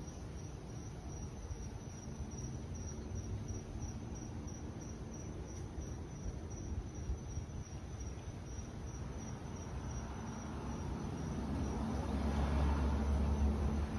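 A cricket chirping steadily outdoors at night in a high, even pulse of about three chirps a second. A low rumble builds near the end.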